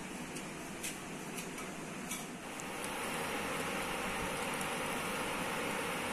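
A few light clinks of a metal spoon against a small ceramic cup in the first two seconds, then a steady hiss that starts about two and a half seconds in and stays even.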